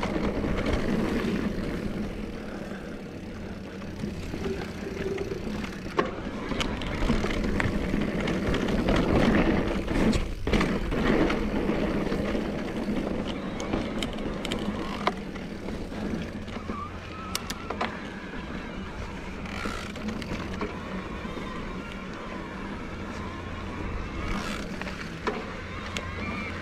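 Cannondale Moterra Neo e-mountain bike with a Bosch CX motor climbing a dirt trail: tyres rolling over dirt and rocks, and the bike clattering and clicking over bumps. Under it runs a steady low hum.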